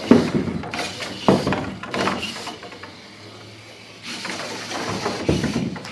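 Several sharp knocks and thuds as a small autonomous hobby robot shoves objects off a table. In a quieter stretch in the middle a faint steady hum of its small motors can be heard.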